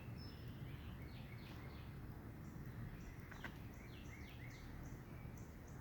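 Small birds chirping, a run of short downward-sliding chirps repeating, over a steady low background rumble. A single click about three and a half seconds in.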